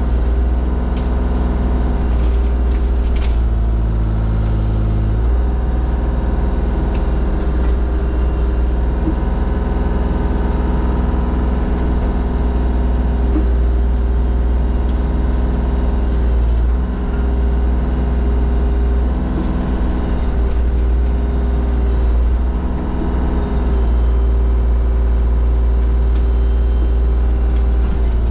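Forestry mulcher machine running hard and steadily, its engine note changing a few times. There are scattered sharp clicks in the first few seconds.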